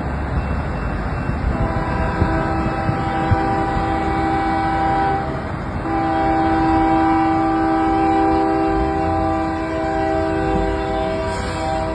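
CN freight train's locomotive air horn sounding a long chord, with a short break about five seconds in before it resumes and holds, over the steady rumble of the train.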